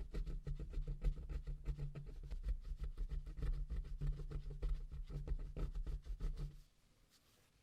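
SS93 pry tool scraping adhesive residue off the phone's plastic cover: a run of irregular scratches and small clicks over a steady low hum, cutting off abruptly about six and a half seconds in.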